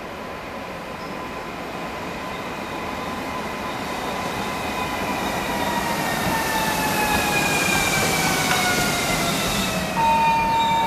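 ED78 electric multiple unit pulling into the platform and braking toward a stop. Its motor whine falls steadily in pitch as it slows, over growing wheel and rail noise. A steady electronic tone starts abruptly near the end.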